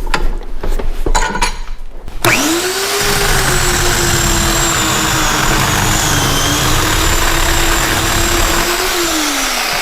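A few knocks, then the Portland 9-amp 14-inch electric chainsaw starts about two seconds in: its motor whine rises and holds steady while the chain cuts through a harder piece of firewood. Near the end the trigger is released and the whine falls as the chain coasts down; this saw has no chain brake.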